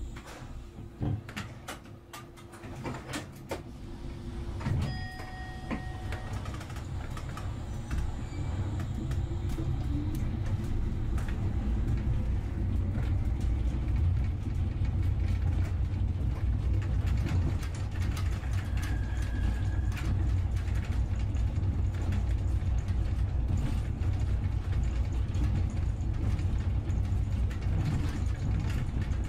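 A few clicks and knocks and a short, steady beep about five seconds in, then a vehicle's engine running low and steady, heard from inside, growing louder from about ten seconds in and then holding.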